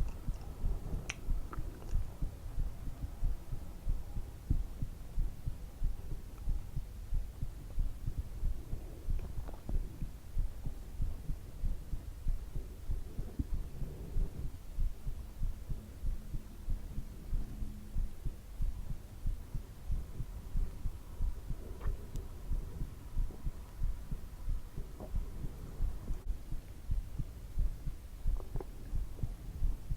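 Heartbeat thudding in a steady, even rhythm, with a faint hum underneath.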